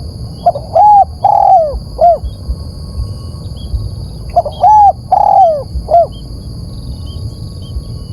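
Spotted dove cooing: two phrases of four arched coos each, about four seconds apart, over a low background rumble and a faint steady high-pitched tone.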